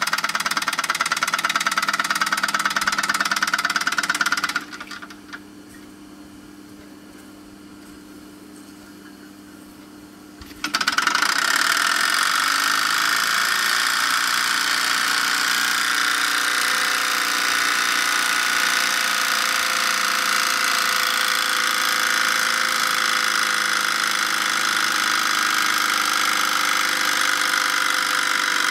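Jensen model 65 live steam engine running at speed with a rapid, even beat. It falls quiet about four and a half seconds in, then starts up again abruptly about six seconds later and runs steadily on.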